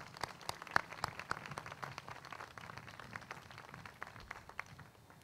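Light applause from a small gathering: separate hand claps, thinning out and dying away near the end.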